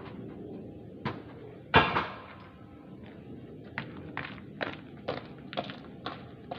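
Knocks and clanks of hand work on a boom lift's pump over a steady low hum: a click about a second in, a loud clank a moment later, then a run of sharp knocks about two a second.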